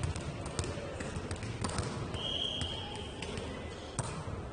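Indoor ball game: a ball thumping and bouncing among players' footfalls, with one short referee's whistle blast a little after two seconds in.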